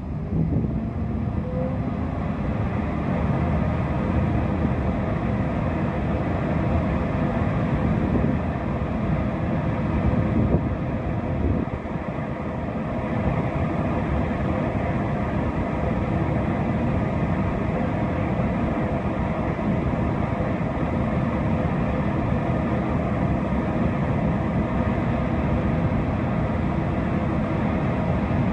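DB Class 401 ICE 1 power car standing at the platform with its cooling fans and auxiliary machinery running: a steady hum with several held tones over an uneven low rumble.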